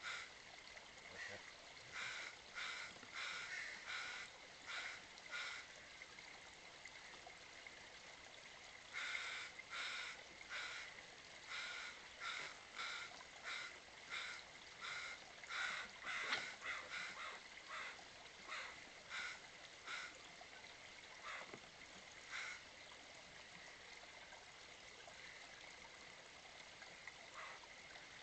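Repeated short, harsh animal calls, about two a second, in two long series with a pause between and a few scattered calls later, over the steady trickle of a small creek.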